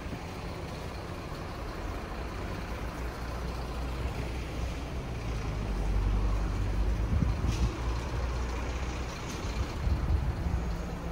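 A heavy road vehicle's engine running close by in street traffic. Its low rumble swells in the middle, and there is a short hiss about seven and a half seconds in.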